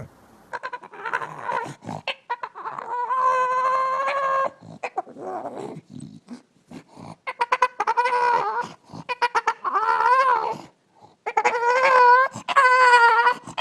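A pet animal giving a series of long howling calls, some held at one pitch and some wavering up and down, with short scuffling noises between them.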